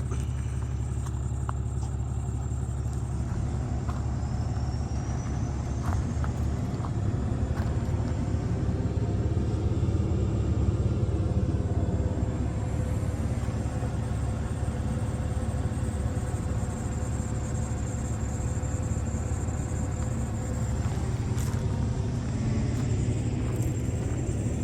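Engine of a Bandit 200UC towable wood chipper running steadily with a low rumble, swelling slightly in loudness a third of the way in.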